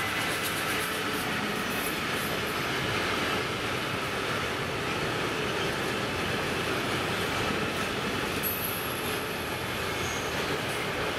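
A class 159 locomotive and a long train of tank wagons rolling past at speed: steady wheel-on-rail noise from the wagons, with a faint high squeal near the end.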